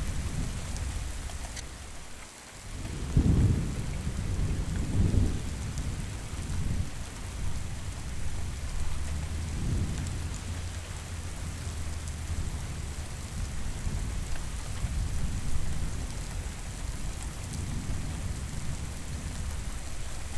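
Steady rain falling, with low rolling thunder rumbles that swell strongest a few seconds in and return more faintly several times.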